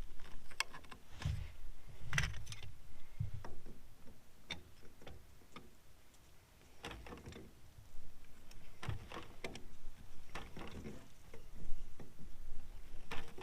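Irregular clicks, knocks and rustles of hands handling plumbing pipe parts during a well-pipe repair, with a quieter stretch midway.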